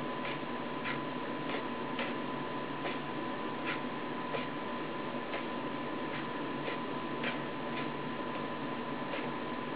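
Light irregular ticks, one or two a second, from the Nao humanoid robot's small head movements, over a steady hiss with a faint high steady tone.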